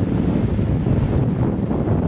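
Ocean surf on a rocky shore: a steady, heavy rush of waves with no single crash standing out, and wind buffeting the microphone.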